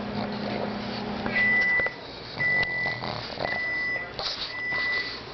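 An appliance's steady hum stops about a second and a half in, and an electronic beeper sounds four times at an even pace, each beep about half a second long.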